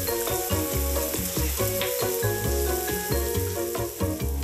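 Shower head spraying water with a steady hiss, mixed with background music with a steady bass beat.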